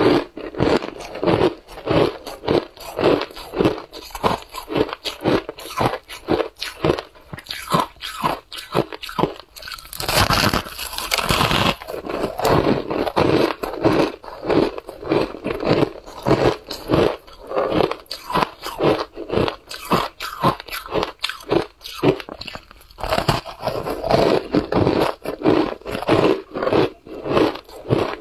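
Matcha-dusted shaved ice being bitten and chewed: fast, steady crunching all through, with a longer, hissier crunch about ten seconds in.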